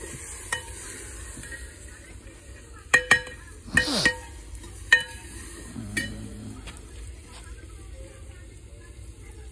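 Metal ladle stirring and clinking against a metal cooking pot of chicken curry over a wood fire: a string of sharp ringing clinks, bunched around three to five seconds in, over a faint steady sizzle.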